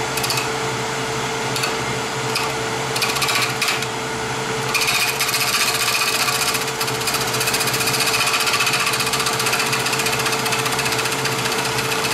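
Wood lathe running with a steady hum while a 3/8-inch spindle gouge cuts the spinning top of a semi-green hackberry piece. A few short cuts come in the first four seconds, then a continuous cut with a fast rattling pulse from about five seconds in.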